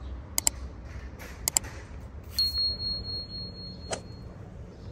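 Subscribe-button overlay sound effect: two quick pairs of mouse clicks, then a single high bell ding that rings on for about two seconds, over a steady low rumble.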